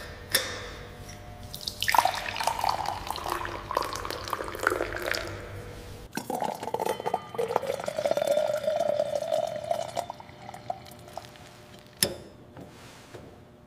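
Wine running from a stainless steel tank's sampling tap into a glass, splashing at first and then filling with a slowly rising tone. There is a sharp click near the start and another about 12 seconds in.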